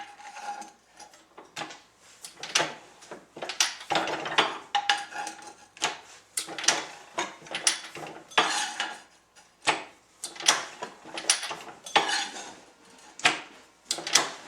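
Irregular metal-on-metal clinks and clanks, some briefly ringing, as new ball bearings are set and pressed into the UFO orbital sander attachment's housing.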